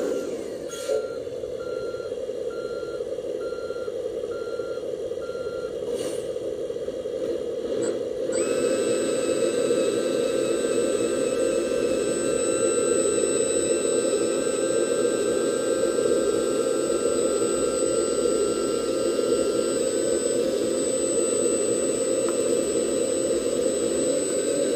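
1/14 scale RC Iveco 8x8 tipper truck: a reversing beeper sounds in regular beeps over a steady engine drone for about the first six seconds. About eight seconds in, its hydraulic pump starts a high, steady whine as the tipper body is raised to dump the load.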